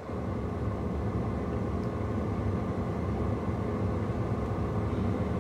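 Steady low hum of a car, heard from inside the cabin. It steps up a little at the very start, then holds even.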